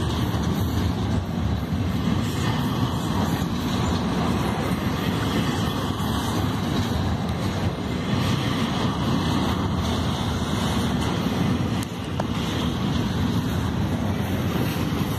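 Double-stack container well cars of a freight train rolling past close by: steel wheels on rail making a steady noise that does not let up.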